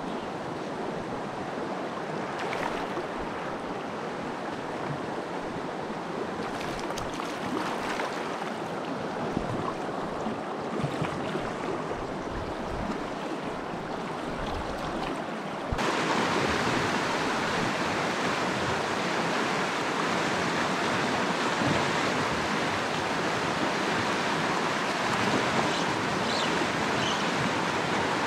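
A rocky mountain stream running, a steady rush of water over riffles. About halfway through it jumps abruptly louder and brighter, the rush of faster white water.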